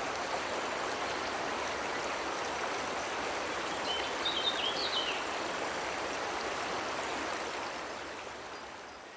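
Steady rush of water from a cascading waterfall and stream. A bird chirps a few quick notes about halfway through, and the water sound fades down over the last two seconds.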